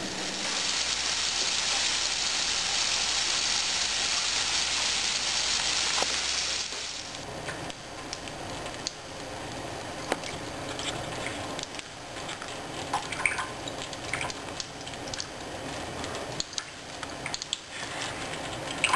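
Water running from a faucet into a sink: a loud steady gush for about the first seven seconds, then a quieter thin trickle with scattered small clicks.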